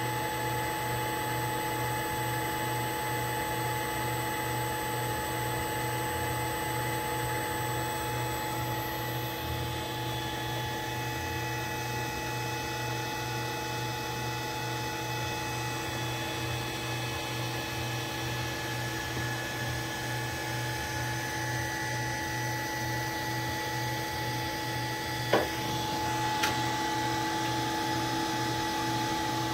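Allen-Bradley MPL-B330P 460 V AC servo motor on a post-repair test run, turning with nothing on its shaft: a steady whine of several held tones over an evenly pulsing low hum, with the mix of higher tones shifting partway through. A single sharp click comes about 25 seconds in.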